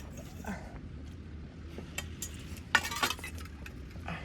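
A few sharp clinks of tableware, like cutlery knocking against dishes. The loudest comes a little under three seconds in.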